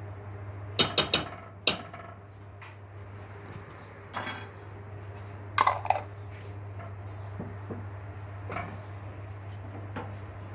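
A plastic spoon knocking and scraping against a metal pot while stirring meat in tomato sauce, in irregular knocks: a quick run of three about a second in, then single and paired knocks every couple of seconds. A steady low hum runs underneath.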